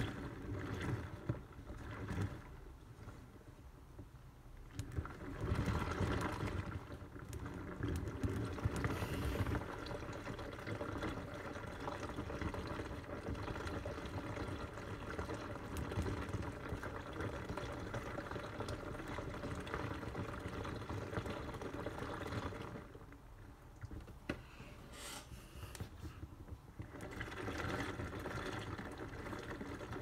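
Homemade toy washing machine rinsing: a small motor turning the drum with a steady hum while water and wet clothes slosh inside. The sound goes quieter twice for a couple of seconds, about three seconds in and again past twenty seconds.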